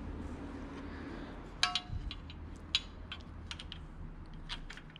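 Small sharp metallic clicks and clinks as a motorcycle clutch cable end is worked into its fitting at the clutch cover of a Suzuki DR650. About half a dozen clicks come irregularly through the second half, the first with a brief ring.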